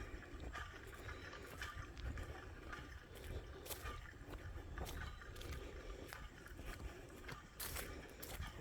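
Faint footsteps along a dirt trail, irregular soft knocks roughly every second, with small clicks and rattles from a jostling backpack over a low rumble.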